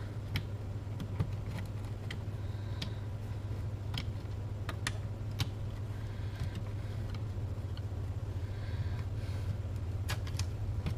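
Scattered small clicks and snaps as batteries are pressed into a transistor radio's battery holder and the holder is handled, over a steady low hum.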